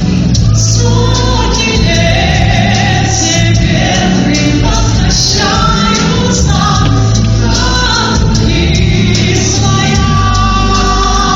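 Music: a song sung over an instrumental backing track, with held melodic vocal lines over a steady bass.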